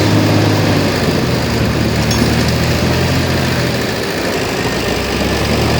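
Heavy earthmoving equipment's diesel engine running steadily with a low hum, easing off slightly about four seconds in.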